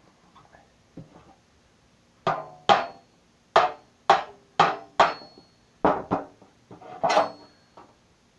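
A knife blade being struck to drive it through the thin sheet-metal lid of a cookie tin: about nine sharp knocks at an uneven pace from about two seconds in, some with a brief metallic ring.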